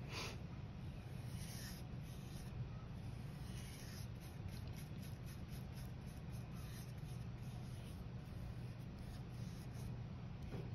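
Paintbrush bristles scratching and swishing on paper as paint is brushed on in short, circular strokes, over a steady low hum.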